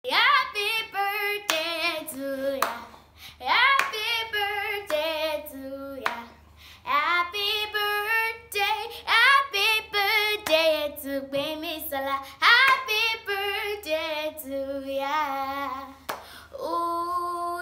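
A young girl singing unaccompanied, in long phrases with wavering held notes, with a few sharp hand claps between phrases.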